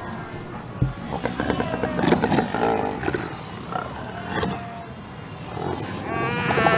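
A Cape fur seal colony calling: many overlapping growls and barks, with a loud, wavering, bleat-like call rising over them near the end.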